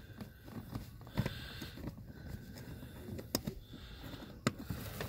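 Faint handling noises and a few short, sharp clicks from a Phillips screwdriver working a small screw out of a car's blower motor resistor mount.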